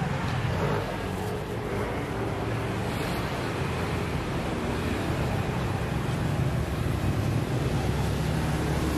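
Steady low rumble and hiss of outdoor street-market ambience, with no single event standing out.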